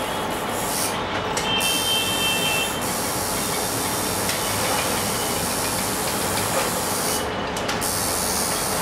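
A steady, even rushing hiss of background noise, with a faint high tone briefly about two seconds in.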